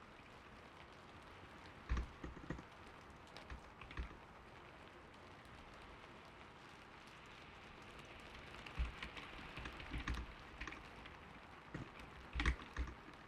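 Keystrokes on a "creamy"-sounding computer keyboard in scattered bursts, a few taps early on and denser runs of typing later, over steady gentle rain.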